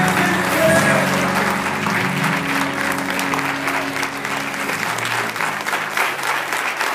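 Congregation applauding over the end of the music, with the music fading out about five seconds in and the clapping carrying on.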